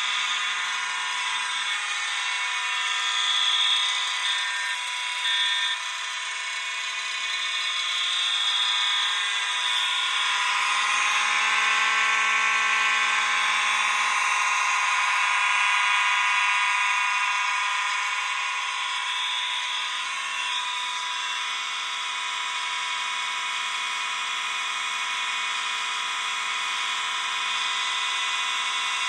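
Several fire alarm notification appliances, horns and an electric motor bell, sounding at once in a steady, continuous din: a demo alarm system in full alarm after both of its pull stations were pulled.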